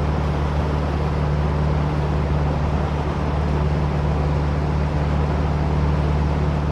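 Boat motor running steadily while the boat is under way, a constant low hum under a steady rushing noise.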